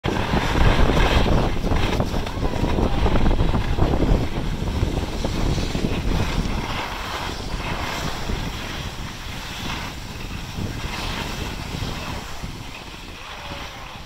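Wind rushing over the microphone during a downhill ski run, mixed with skis hissing and scraping over packed snow. It is loudest in the first few seconds and eases off as the pace slows.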